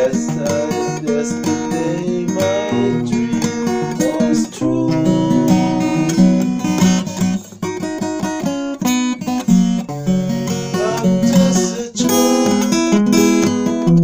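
Instrumental music, with notes and chords changing every second or so and no break.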